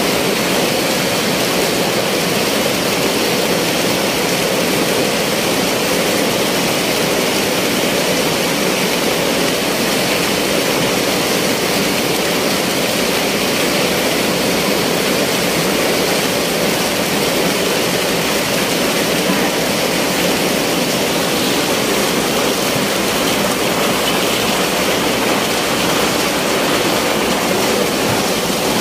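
Ice-making machinery running with a loud, steady noise, while ice pours down the machine's chute into a sack.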